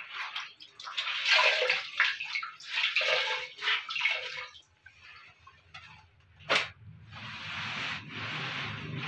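Water splashing and sloshing as a wet cloth is dunked and wrung out in a bucket of water, then, after a lull and a single sharp knock, steady scrubbing of the wet cloth on the tank's plastic floor.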